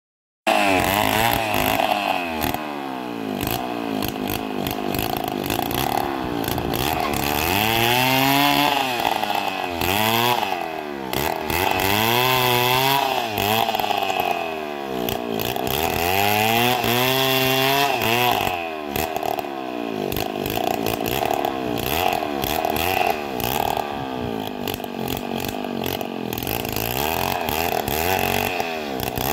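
A small engine revving up and down over and over, its pitch rising and falling every two to three seconds.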